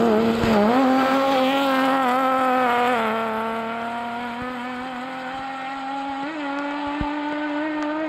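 BMW rally car's engine pulling hard along a gravel stage: a brief dip and rise in pitch about half a second in, then a long, steady, slowly rising note that fades as the car drives away.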